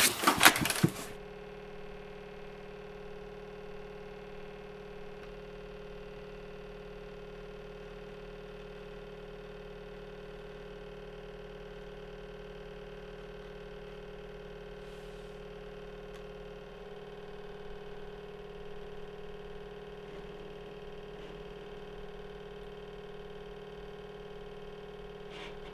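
A steady electrical-sounding hum made of several fixed tones, shifting slightly in pitch about two-thirds of the way through, after a brief louder sound in the first second.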